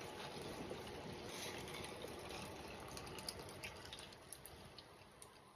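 Juice poured over ice into a cup: a steady trickling pour that slowly tapers off toward the end, with a few faint clicks.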